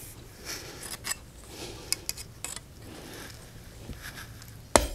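Metal coat-hanger wire being handled and worked with pliers: scattered light clicks and scrapes of metal on metal, with one sharper click near the end.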